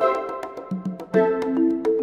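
Background music: a melody of short pitched notes over a light, steady ticking beat.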